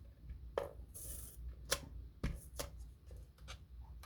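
Cardstock and craft tools handled on a desk: scattered light taps and clicks, with a brief papery rustle about a second in.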